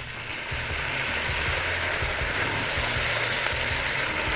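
Marinated beef-steak shawarma strips hitting well-heated oil in a frying pan and sizzling. The sizzle builds over the first half second, then holds steady as the meat sears.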